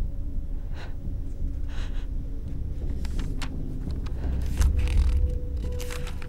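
A steady low rumble, swelling a little about halfway through, with scattered light clicks and rustles of paper. A faint steady tone enters about four and a half seconds in.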